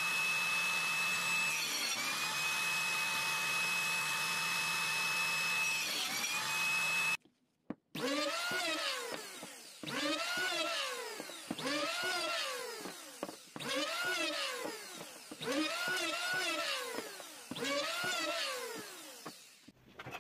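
A table saw running with a steady high whine that dips twice as the blade takes the wood under load. After a short break, an electric hand planer makes about six passes, each about two seconds long, its pitch rising and falling with each pass.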